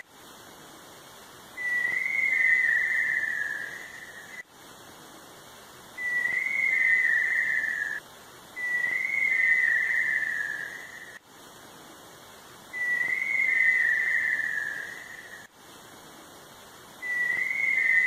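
Tinamou giving long, quavering whistled calls, each about two seconds long and dropping slightly in pitch, repeated five times.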